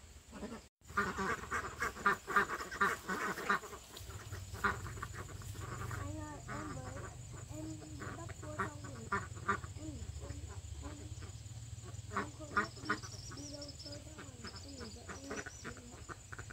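Poultry calling. About a second in comes a dense run of loud, rapid calls lasting a few seconds, then softer scattered calls over a steady low hum.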